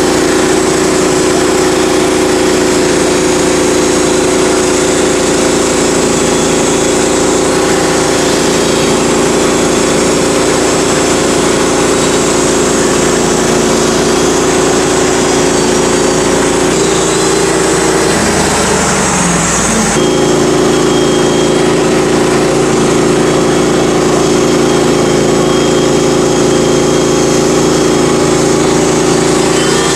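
Norwood HD 38 portable band sawmill's engine running steadily. Its note dips and wavers for a few seconds past the halfway point, then settles back to the same steady pitch.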